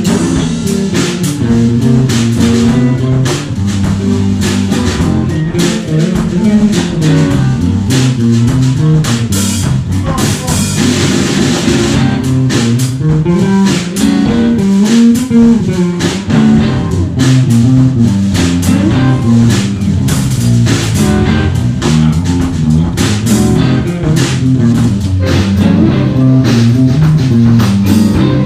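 Live electric blues band playing an instrumental jam: electric guitars, electric bass and a drum kit, with the bass line moving busily underneath and a wash of cymbals partway through.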